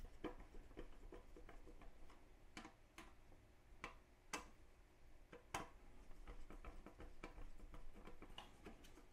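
Faint, irregular clicks and ticks of a screwdriver turning small screws that clamp a multimeter's circuit board to its display bracket, with a few sharper clicks standing out among them.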